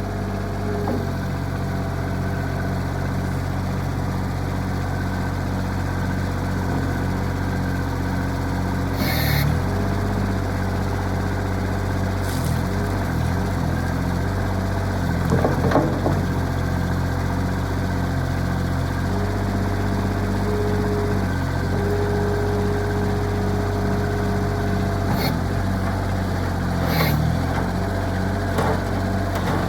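Kubota diesel engine of a 2017 Bobcat MT55 stand-on mini skid steer running steadily, with a few sharp knocks scattered through.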